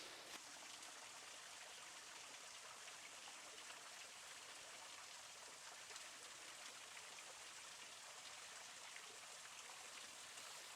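Faint, steady hiss of a small creek's running water, its flow low after a dry spell.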